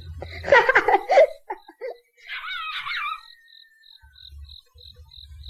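A cartoon boy giggles and laughs about half a second in. Near the middle comes a brief, high, wavering whine. A faint high chirp pulses about three times a second in the background.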